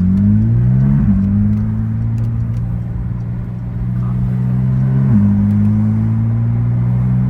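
Porsche 992 GT3's naturally aspirated 4.0-litre flat-six running through an FI aftermarket exhaust while driving: the engine note climbs over the first second, then holds a steady drone, dipping briefly and recovering about five seconds in.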